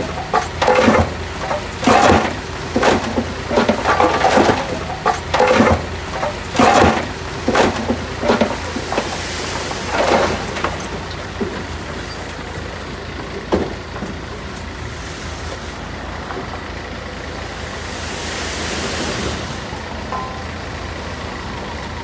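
Heavy earthmoving machinery working: a steady low diesel drone with a string of short, sharp, irregular clanks over the first half, then steadier running that swells a little near the end.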